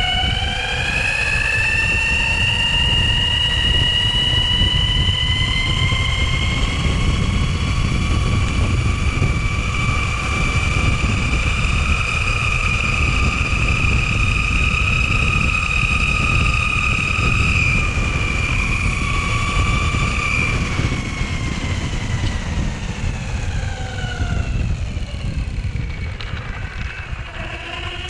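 Onsra Black Carve belt-drive electric skateboard's drive whining under speed, the pitch rising over the first few seconds, holding steady, then falling away from about twenty seconds in as the board slows, over a constant low rumble.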